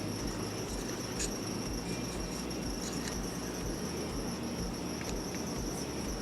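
Electric fan running steadily, with a constant high-pitched whine above its hum and a few faint clicks.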